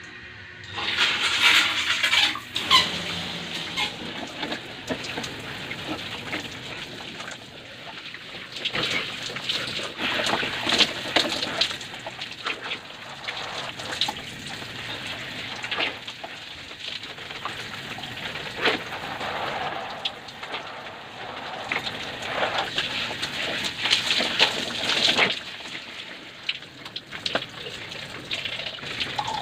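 Water running and splashing irregularly, with many small splashes and spatters.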